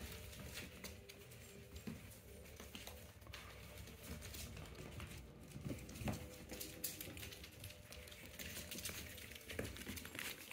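Light, irregular clicks and patter of five-week-old puggle puppies moving about, their claws and paws ticking on the floor, with a few louder knocks about six seconds in.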